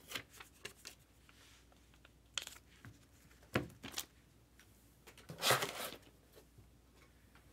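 Trading cards and their packaging handled on a tabletop: a few short clicks and rustles, the loudest a half-second rustle about five and a half seconds in.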